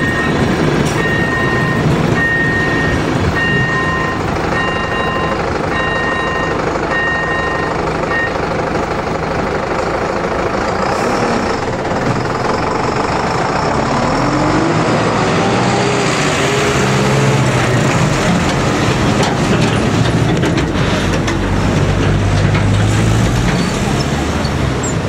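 The AŽD level-crossing's electronic warning bell beeping about once a second over the rumble of the passing train's coaches. The bell stops about eight seconds in, and road vehicles then start across the crossing, with engines revving up and a truck engine running.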